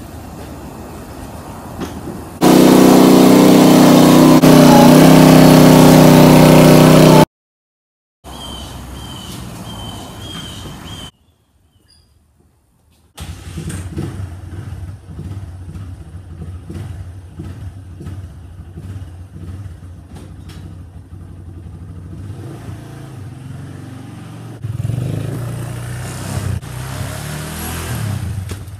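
A very loud, steady drone for about five seconds that cuts off abruptly, then near silence, then a Suzuki LT230S ATV's single-cylinder engine starts and idles with a regular ticking pulse, running louder over the last few seconds.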